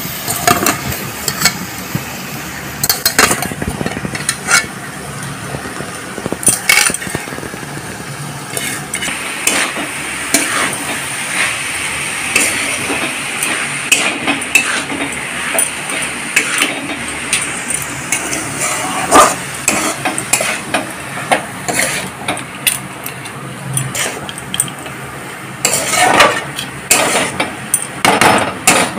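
Chopped mushrooms sizzling in hot oil and masala in a metal kadai while a steel spatula stirs them. The spatula scrapes and clinks against the pan in irregular strokes, busiest near the end.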